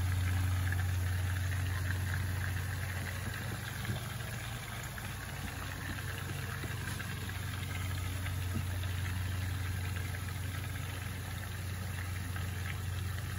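Meatballs frying in a skillet of bubbling oil: a steady, fine sizzle over a loud, steady low hum.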